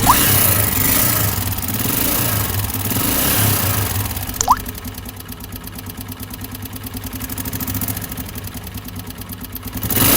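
Honda CG 125's air-cooled single-cylinder pushrod four-stroke engine running with an abnormal rapid, even ticking noise from the engine, which the mechanic puts down to low oil, a failing oil pump or damaged push rods. It runs louder for the first few seconds, then settles lower, with one short rising squeak about four and a half seconds in.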